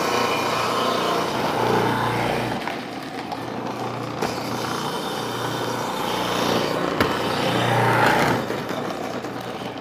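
Electric food processor running, shredding whole zucchini pushed down the feed tube onto the grating disc. The steady motor hum and shredding noise swell louder twice, about two seconds in and near the end, as the zucchini is pressed through.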